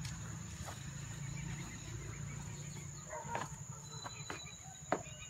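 Rural outdoor ambience: a steady low rumble on the microphone and a steady high-pitched whine, with faint chirping and a few sharp clicks about three to five seconds in.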